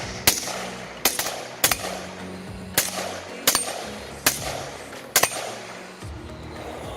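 Glock pistol fired seven times in an unhurried string, a shot about every second, the string ending a little after five seconds in. Background music plays underneath.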